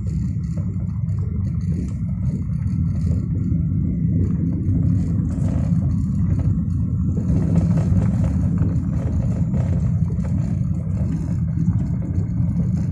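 Steady low rumble of a car being driven slowly, engine and road noise heard from the moving vehicle.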